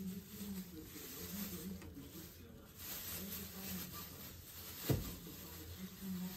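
Plastic bag rustling as white cheese is pulled out of it by hand and crumbled over a bowl, with one sharp knock about five seconds in.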